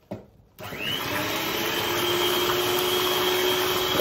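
Electric hand mixer switched on about half a second in, its motor whine rising quickly and then running steadily as the beaters mix thin crepe batter.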